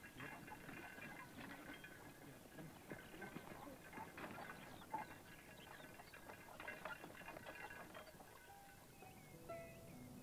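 Faint, irregular clatter of horse hooves, with soft animal and voice-like sounds in the background; a few plucked musical notes come in near the end.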